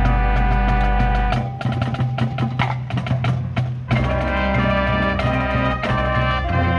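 Marching band playing: sustained brass and wind chords over a low bass note, giving way about a second and a half in to a stretch of rapid drum and percussion hits, with the full band coming back in near the four-second mark.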